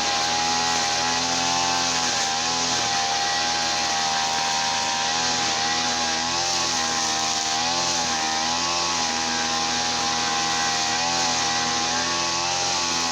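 Small petrol engine of a garden machine running steadily, its speed wavering slightly up and down.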